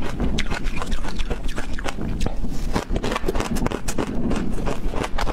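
Close-miked crunching and chewing of a mouthful of snow-like ice flakes: rapid, irregular crisp crunches.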